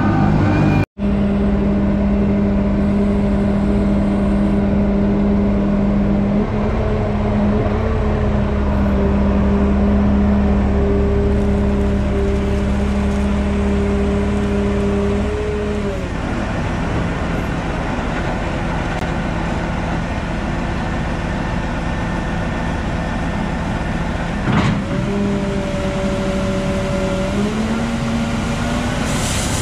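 Large diesel engine of a John Deere 9520RX tractor running steadily under load, its pitch dropping about halfway through and rising again near the end. The sound cuts out for an instant just under a second in.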